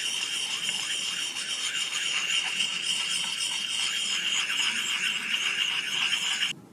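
A puck sharpening stone scraping steadily against the steel bit of a double-bit axe as the edge is honed. It starts abruptly and cuts off shortly before the end.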